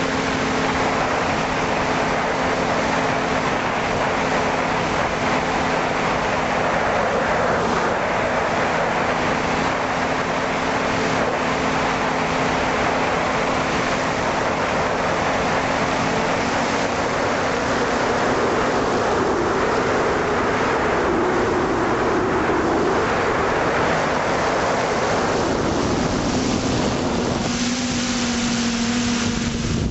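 A small multirotor drone's electric motors and propellers hum as heard from its onboard camera, with a steady rush of wind and prop wash over the microphone. About 27 seconds in, the motor tones shift in pitch as the drone changes its speed.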